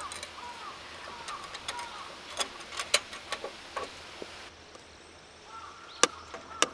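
Firewood crackling and popping as it burns in a small tabletop wood stove, with sharp pops about three seconds in and twice near the end. A bird calls over it in a quick repeated pattern.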